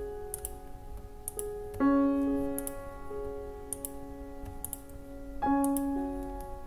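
Soft background piano music holding sustained chords, with new chords struck about two seconds in and again near the end. Faint clicks of a computer mouse and keyboard sound over it every second or so.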